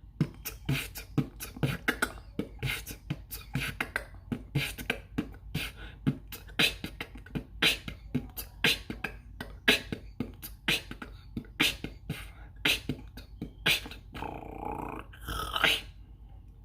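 Vocal beatboxing: a steady beat of mouth-made kick, snare and hi-hat sounds, about two to three hits a second, ending in a held, wavering vocal sound that stops sharply.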